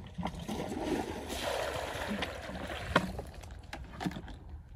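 Shallow muddy water sloshing and splashing as it is worked by hand, with a single sharp knock about three seconds in.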